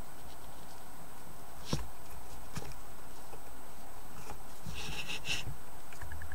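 Small clicks and knocks of a circuit-board camera module being handled and pushed onto pin-header connectors: a sharp click about two seconds in, a lighter one shortly after, and a cluster of small clicks with a brief scrape about five seconds in, over a steady hiss. A rapid, evenly pulsing buzz starts right at the end.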